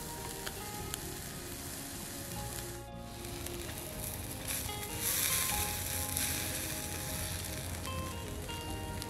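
Burger patty sizzling on a hot grill grate over charcoal, a steady frying hiss that grows louder about five seconds in.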